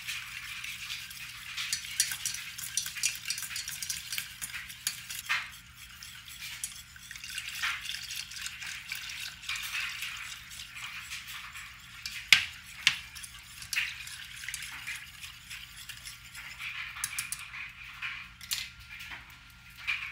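Wire whisk stirring and clinking against a metal saucepan, whisking milk into a butter-and-flour roux to make béchamel sauce. Continuous scraping with many small clinks, and two louder knocks against the pan about twelve seconds in.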